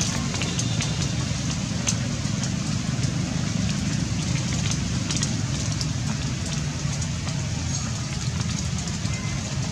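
Steady outdoor background noise: a low rumble under a hiss, with faint scattered clicks.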